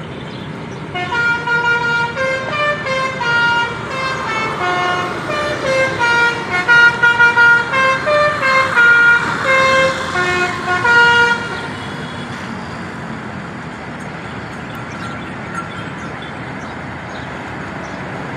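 A bus's 'telolet basuri' musical horn, a set of electric air trumpets, plays a quick tune of short notes for about ten seconds and then stops. A steady low engine rumble runs underneath.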